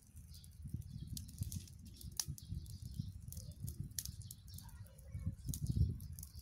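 Wind rumbling on the microphone, with scattered light clicks and crackles from sticks being pushed into a small wood-fired cooking stove.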